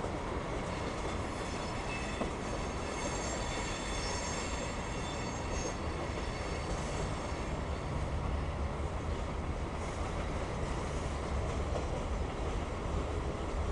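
A CSX mixed freight train's tank cars rolling past: a steady rumble of steel wheels on rail, with thin high-pitched wheel-squeal tones over it, strongest in the first half.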